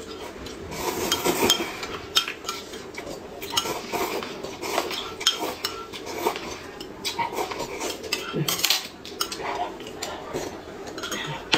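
Close-up eating sounds: noodles slurped from a paper cup and a spoon clinking and scraping against a small glass cup, in short irregular bursts. Near the end the noodle cup is lifted and its broth sipped.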